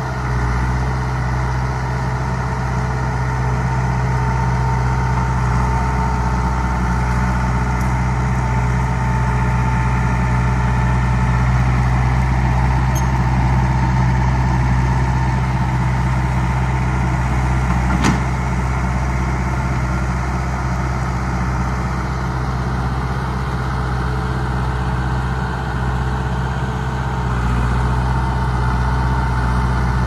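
John Deere 450B bulldozer's diesel engine running steadily, with one sharp click a little past halfway through.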